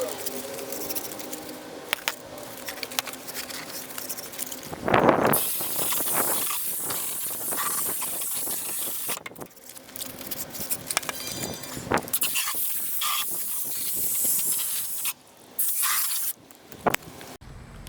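Spray hissing in on-and-off bursts of several seconds each while the heat pump's coils are cleaned, with a few small clicks between bursts.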